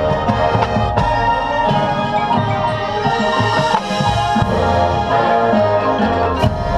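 Drum and bugle corps playing: brass chords over marimbas and other mallet percussion, with drum strikes.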